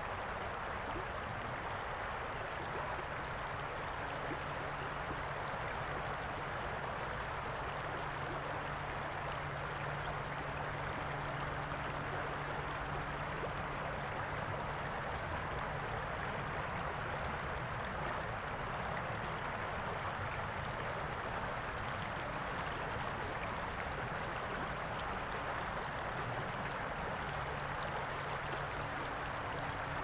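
Shallow river water flowing over a rocky bed, a steady rushing with no breaks.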